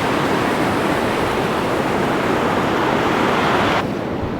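Ocean surf washing on a beach: a steady rushing noise that cuts off suddenly near the end.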